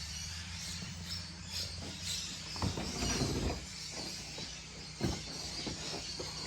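A few knocks and scrapes of the plastic headlight assembly being pushed out of its mounting, over a low steady hum.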